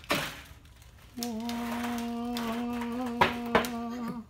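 A short scrape falling in pitch as the sawn halves of a steel water heater tank are pulled apart, then a man humming one held note for about three seconds, with two sharp knocks near the end.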